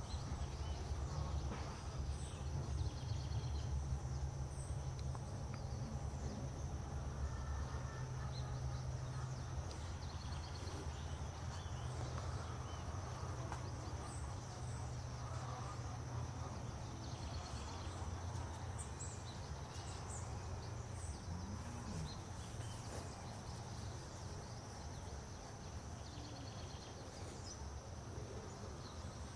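Outdoor ambience: a steady high-pitched insect drone with scattered faint chirps of small birds over a steady low rumble.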